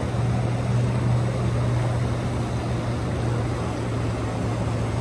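A steady low engine hum, a motor running without change over a background of outdoor noise.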